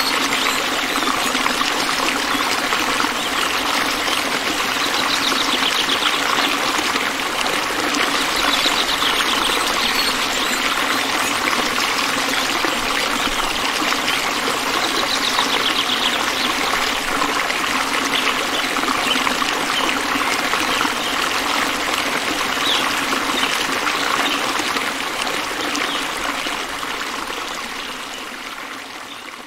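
Water trickling and splashing steadily over the rocks of a homemade tabletop fountain, fading out over the last few seconds.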